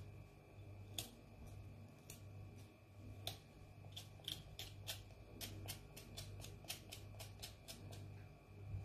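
Small knife scraping and clicking as it peels the skin off bitter kola nuts (Garcinia kola) on a wooden cutting board, in faint, irregular ticks, with a low steady hum underneath.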